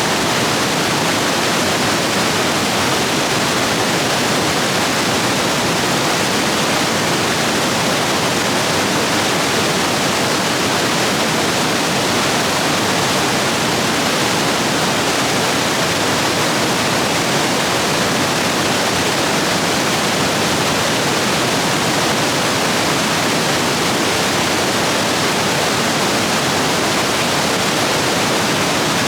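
Rapids rushing, swollen after heavy rain: a loud, steady roar of white water with no let-up.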